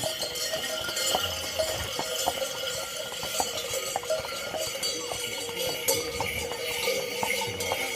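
Many small bells on a decorated horse's harness jingling without a break as the horse walks, with steady ringing and scattered clinks.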